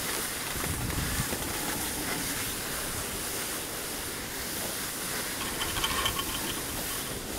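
Steady hiss of skis sliding over groomed snow while being towed uphill on a T-bar lift, with a brief patch of fine rattling clicks a little before the end.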